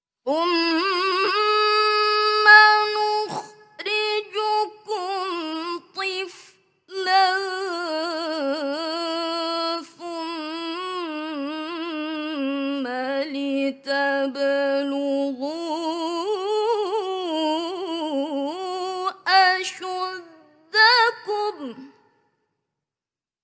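A young woman reciting the Quran in the melodic tilawah (mujawwad) style: long held notes with wavering, ornamented pitch, broken by short breaths. The line dips lower in the middle, climbs again, and stops near the end.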